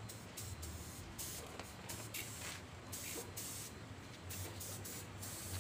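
Compressed-air spray gun hissing in a string of short bursts with brief pauses between them, spraying clear coat onto mountain-bike parts.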